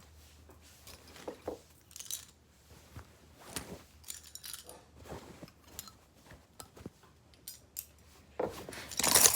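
Scattered light metallic clicks and clinks as a butterfly knife trainer and its small loose parts are handled and put away into a small carry box, with a louder rattling clatter near the end.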